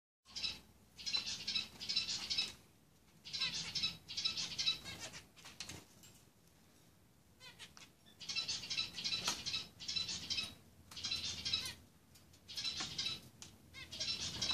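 Pet conures calling: repeated bursts of high, harsh chattering, each about half a second to a second long, coming in bouts, with a lull of a couple of seconds midway.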